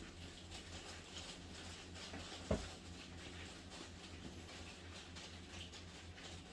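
Small screwdriver working the screws out of a plastic laptop base cover: faint scattered ticks and scratchy clicks, with one louder knock about two and a half seconds in.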